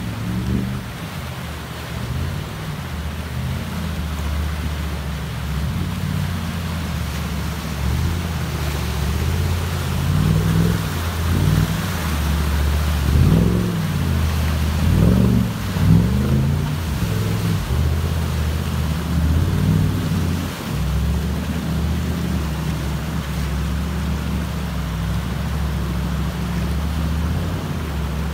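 Off-road buggy engine running and revving as the buggy pushes through fast river water, with the river rushing and splashing around it. The engine surges up and down several times in the middle, its loudest stretch.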